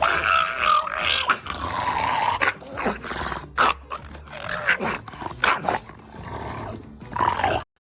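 A dog growling and vocalizing in drawn-out, wavering sounds, broken by several short sharp noises, cutting off abruptly near the end.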